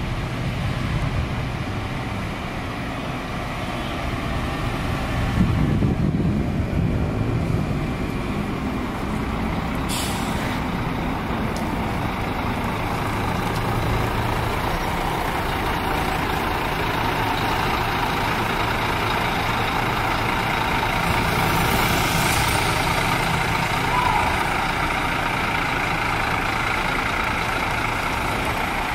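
Scania coach's diesel engine running as the coach drives slowly and pulls in to park. A short hiss of air comes about ten seconds in, and a longer one a little after twenty seconds.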